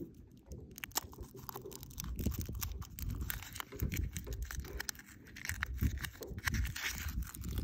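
Foil wrapper of a Kinder Surprise chocolate egg crinkling and tearing as it is peeled off by hand, with many quick crackles. A low rumble of wind on the microphone runs underneath.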